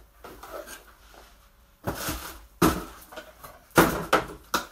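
Packing material and parts being handled while unboxing: a few sudden knocks and scrapes, the loudest near the end.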